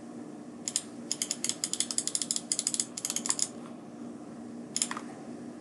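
A computer mouse scroll wheel clicking in a quick run of small ticks for about three seconds, then once more briefly near the end, over a steady low hum.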